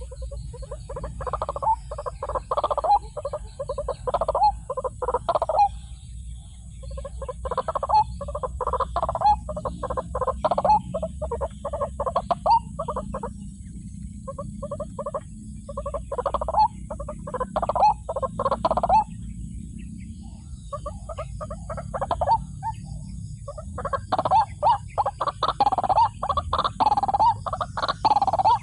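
White-breasted waterhen calling: rapid strings of harsh, repeated notes in bouts of a few seconds, with short pauses between bouts.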